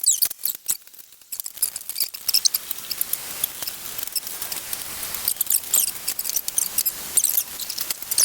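Ground beef frying in a hot skillet, sizzling and crackling steadily after a quiet first second.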